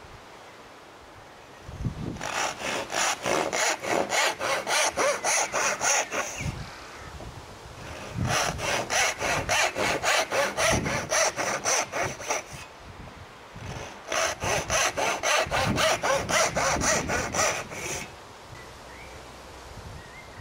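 Disston No. 5 backsaw, filed with 6 degrees of rake and 5 degrees of fleam, ripping down into the end of a softwood board. There are three bouts of even back-and-forth strokes, about three a second, with short pauses between them.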